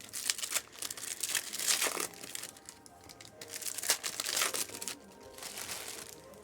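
Foil trading-card pack wrappers crinkling and rustling in irregular bursts as packs are opened and handled, over soft background music.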